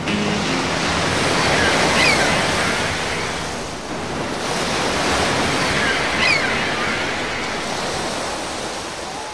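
Sea surf washing in and out, swelling twice and fading near the end, with two brief high calls about two and six seconds in.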